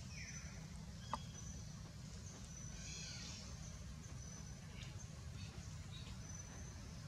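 Faint outdoor ambience: a steady low rumble with scattered short, high chirps. A brief falling squeak comes right at the start and a single sharp click about a second in.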